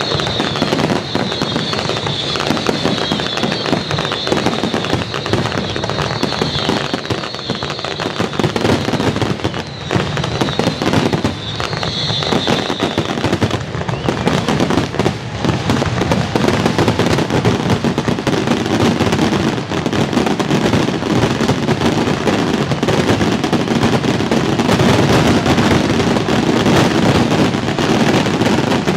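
Aerial fireworks going off in a dense, continuous barrage of overlapping bangs and crackles. A higher sizzling layer sits on top for about the first dozen seconds.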